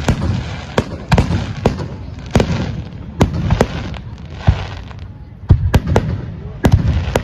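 Fireworks display going off: more than a dozen sharp bangs at irregular intervals, some close together, over continuous crackling noise.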